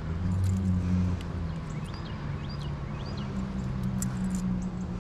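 Vehicle engine idling with a steady low hum, a little louder in the first second and a half, over a hiss of background noise. Three faint short high chirps come about two to three seconds in, with a few light clicks.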